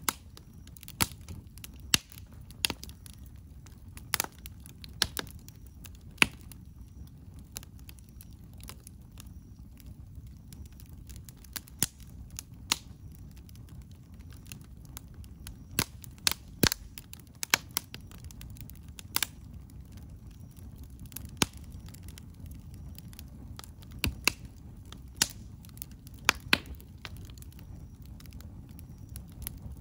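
Wood campfire crackling, with sharp pops at irregular intervals over a low, steady rumble.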